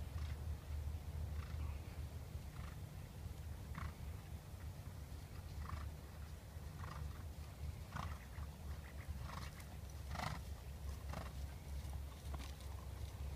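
A dressage horse working on a sand arena, giving short sharp sounds about once a second in time with its stride, over a steady low rumble.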